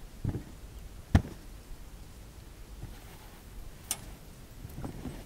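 A few separate crunching steps and knocks in snow as a person climbs, with the planting of a pole; the sharpest, loudest knock comes about a second in.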